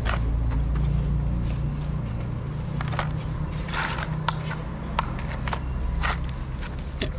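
Two cats eating wet minced food from plastic trays: short, irregular chewing and smacking clicks over a steady low rumble.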